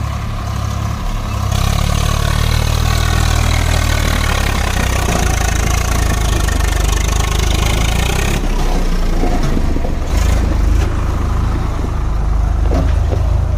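Swaraj 744 FE tractor's three-cylinder diesel engine working under load as it pulls a heavily loaded soil trolley. The steady low engine note turns louder and harsher from about a second and a half in, then eases back about eight seconds in.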